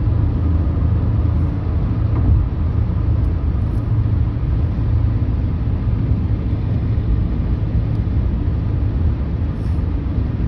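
Steady low rumble of a car travelling along a highway, road and engine noise heard from inside the car, with no sudden events.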